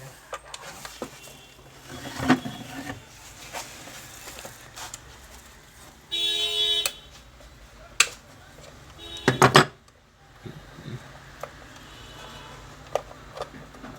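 Scattered clicks and knocks of metal tools working screws on a sewing machine's frame. A steady, even-pitched honk of a vehicle horn lasts under a second about six seconds in, and a louder burst comes about a second and a half later.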